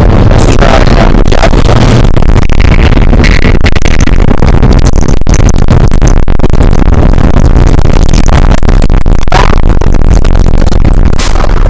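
Very loud, heavily distorted, noise-like music at a constant level, with a steady low drone and dense crackling.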